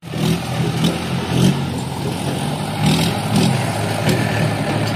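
Diesel engine of a JCB backhoe loader running under load while it digs soil, its pitch rising and falling in repeated surges.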